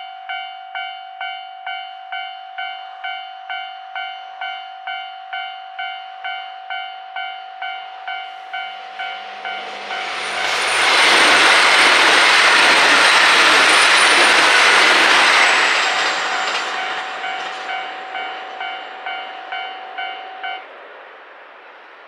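Japanese railway level-crossing alarm ringing at about one and a half strokes a second, while a diesel limited express train passes through the crossing at speed. The train is loudest for about five seconds in the middle, with a thin high whine over the rush of the wheels. The alarm stops shortly before the end as the train clears.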